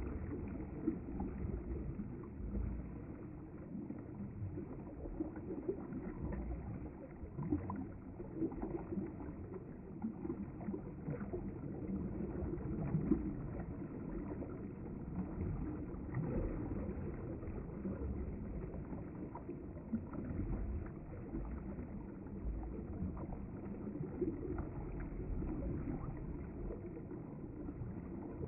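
River water flowing steadily past the bank, a continuous low rushing with small irregular splashes and gurgles.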